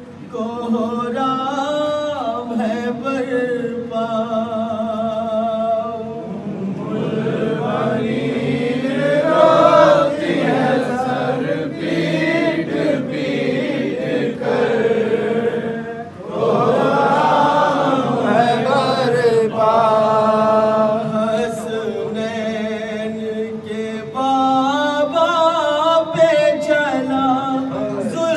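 An Urdu noha sung by a male reciter into a microphone, unaccompanied, in long held melodic lines. In two stretches, a few seconds in and again past the middle, a group of men's voices joins in on the refrain.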